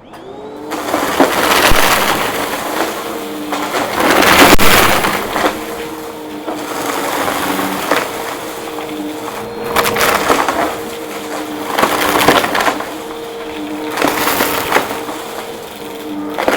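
Vacuum cleaner motor starting up and running with a steady hum while crunchy debris is sucked up, crackling loudly in surges about every two seconds.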